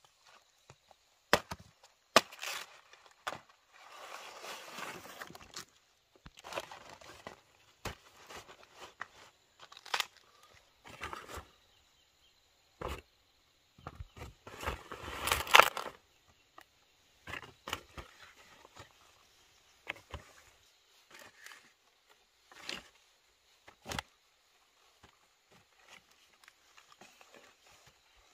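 Banana leaves rustling and crackling and chayote fruit knocking into a woven bamboo basket as it is lined and packed by hand: irregular taps and rustles, with longer, louder leaf rustling about four seconds in and again around fourteen to sixteen seconds.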